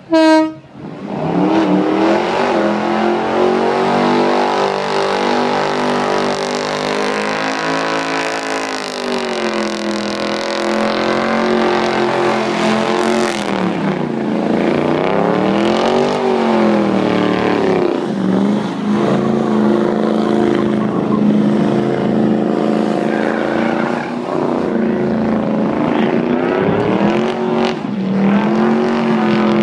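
A short, loud beep right at the start. Then a Chevrolet pickup's engine is held at high revs through a burnout with its rear tyres spinning, the revs wavering up and down and dipping and climbing again about halfway through.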